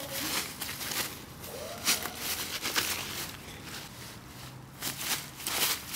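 Dry fallen leaves crunching and rustling in irregular bursts under a dog's paws and a walker's feet as the dog bounds through them.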